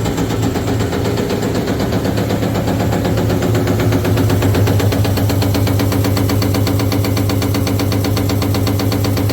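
Amada Vipros 255 CNC turret punch running its warm-up cycle: the ram strokes in a fast, even rhythm of many hits a second over the steady hum of the hydraulic pump.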